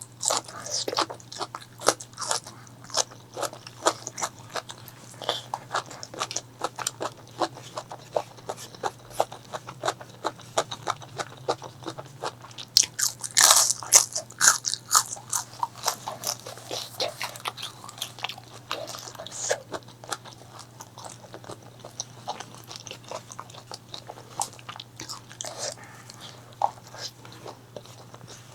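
Close-miked eating: crisp bites and chewing of crunchy food, with a burst of loud crunches about halfway through, over a faint steady low hum.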